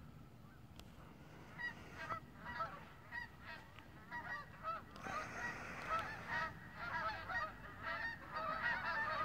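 A flock of geese honking as they fly overhead: many short calls, sparse at first, then denser and louder from about halfway through.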